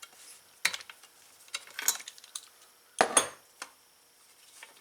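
Metal hand tools clinking and clattering, a spark plug socket and wrench being handled on a small engine: scattered sharp clicks, the loudest a short cluster of clanks about three seconds in.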